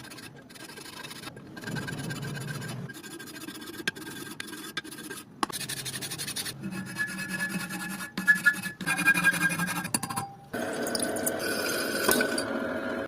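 Scraping, rubbing and filing sounds from hand work on a cracked oil chamber, in short clips that cut abruptly from one to the next every second or few.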